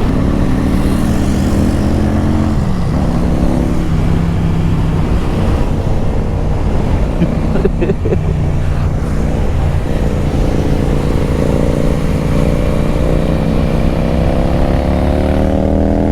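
Motorcycle engine running under way, with wind noise. Its pitch drops briefly about two and a half seconds in, then rises steadily over the last couple of seconds as it accelerates.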